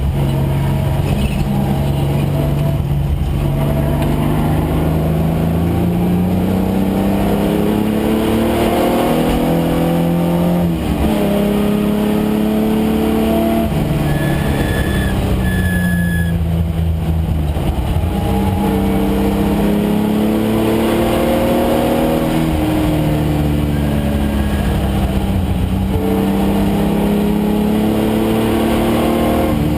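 Datsun 510 race car's swapped-in Nissan VG30 3.0 V6 engine running hard on track. Its pitch climbs slowly through the revs and drops back sharply several times as the car accelerates, shifts and slows for corners.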